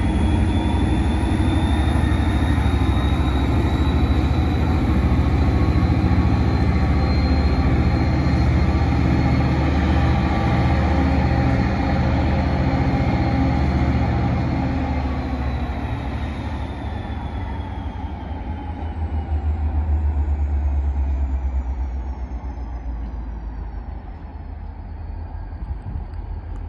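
Two Maine Central diesel-electric locomotives running under power as they pull a freight train, a heavy low engine rumble with a high turbocharger whine. From about 15 seconds in, the whine and engine tones fall in pitch and the sound gets quieter as the engines throttle down.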